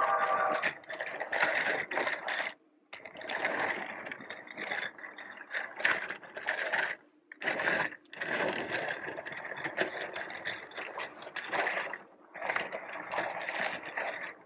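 Battery-powered CAT Preschool Express toy train running around its plastic track, its small motor and gears whirring and rattling. The sound cuts out briefly three times.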